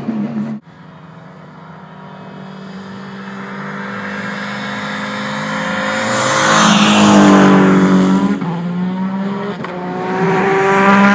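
Peugeot turbocharged race car engine approaching, growing steadily louder as it revs up through the gears, its pitch climbing and dropping back at each shift. It is loudest a little past the middle, briefly lifts off, then revs hard again near the end. A louder sound cuts off abruptly about half a second in.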